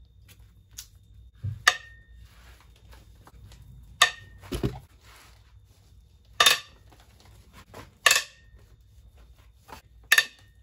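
Breaker bar and socket loosening the cylinder head bolts on a GM 6.5 L diesel: a series of sharp metallic cracks and clinks, about six over ten seconds, some with a short ring. There is a dull thump about four and a half seconds in.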